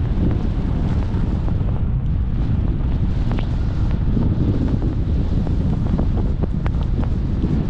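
Wind rushing across the microphone of a skier's camera while skiing downhill: a steady low rumble, with scattered faint ticks on top.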